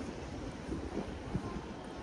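Street ambience: a steady low rumble of wind buffeting the microphone.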